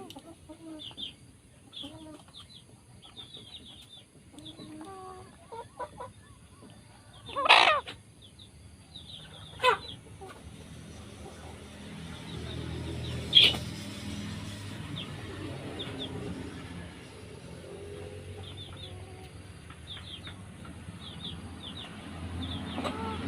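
Domestic chickens clucking and calling, with many short high peeps throughout. There are three sudden loud sounds in the first half, and a low rumble from about halfway on.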